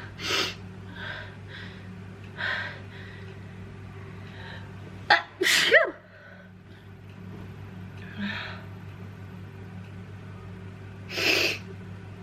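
A person with a head cold sneezing again and again, with shorter breaths between. The loudest sneeze, with a sharp start and a voiced cry, comes about five seconds in; another strong one comes near the end.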